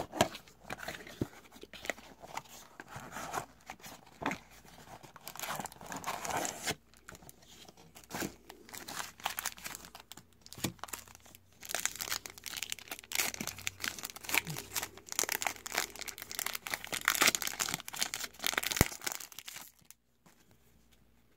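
A cardboard trading-card blaster box is torn open by hand, and foil card-pack wrappers are crinkled and ripped open, with sharp crackling rustles. The handling stops about a second and a half before the end.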